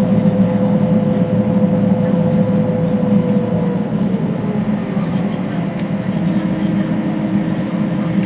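Cabin noise inside a Boeing Jetfoil 929 hydrofoil: a steady heavy drone from its two gas turbines and waterjet propulsion, with a high whine that drops in pitch about four seconds in.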